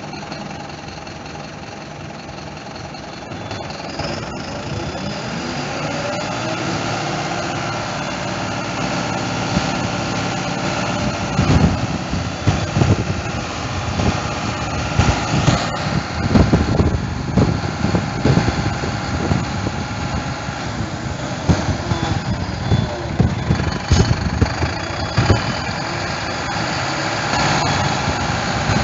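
Mercedes-Benz Atego 1422 fire engine's diesel running at raised revs to drive the hydraulics of its Metz L32 turntable ladder while the ladder is stowed and the stabiliser legs are retracted. The engine speeds up about four seconds in, and irregular knocks and clunks sound through the middle.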